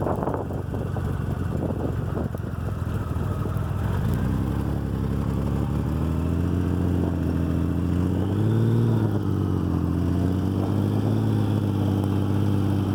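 Motorcycle engine running under way, with wind rushing over the microphone at first before the engine note comes through clearly. The engine note holds steady and rises briefly in a short rev about two-thirds of the way through.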